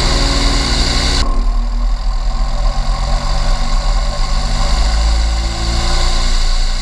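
Steyr 9105 MT tractor's diesel engine running steadily at low revs. About a second in, a brighter, hissier sound cuts off abruptly, leaving the engine's low hum.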